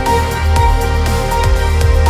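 Background music with a steady beat, deep bass notes and held synth-like tones.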